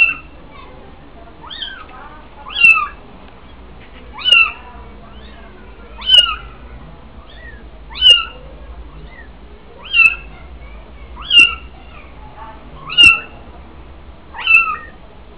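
Very young kittens mewing, about nine loud, short high-pitched mews repeated every one and a half to two seconds. The kittens have been left on their own by the mother cat during weaning.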